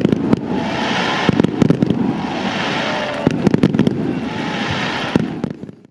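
A rapid, irregular series of sharp bangs and pops over a steady din, fading out near the end.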